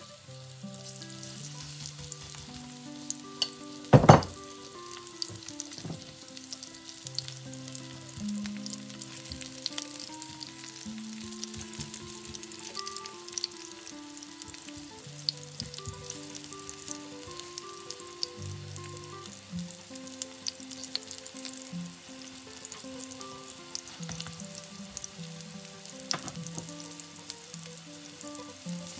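Grated zucchini fritters frying in shallow oil in a nonstick pan: a steady sizzle full of small crackles and spits. One loud, sharp knock comes about four seconds in, and a smaller one near the end.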